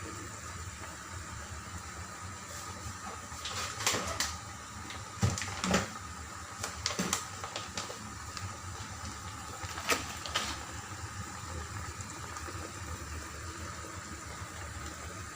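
Chicken adobo simmering in a pot: a steady bubbling hiss, broken by a few short clinks and knocks between about four and ten seconds in.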